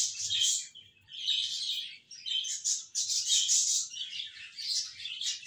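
A pen scratching on notebook paper in short clusters of strokes as figures are written, with brief pauses when the pen lifts.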